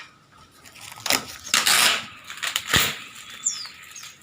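Knocks and scraping clatter as a nailed packing crate is pried open: a few separate bangs and scrapes, the longest a scrape lasting about half a second, with a sharp knock near the end.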